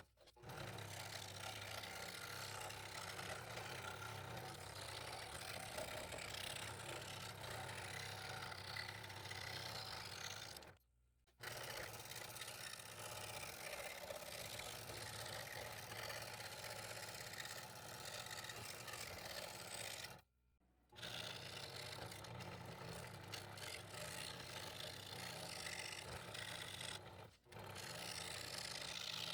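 Scroll saw running with a No. 5 blade, cutting through a double stack of quarter-inch red oak: a steady low hum under a hiss of sawing. The sound stops abruptly three times for a moment.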